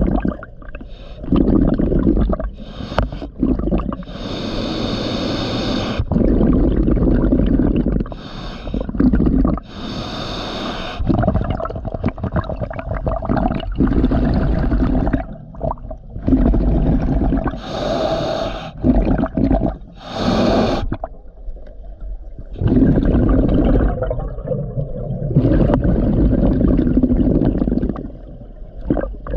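Scuba regulator breathing underwater: hissing inhalations through the regulator alternating with rumbling, gurgling bursts of exhaled bubbles, in a slow repeating cycle of several breaths.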